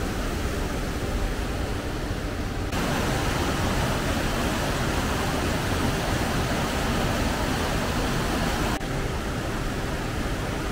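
Steady rushing of a mountain stream. It turns louder suddenly about three seconds in and drops back just as suddenly near the end.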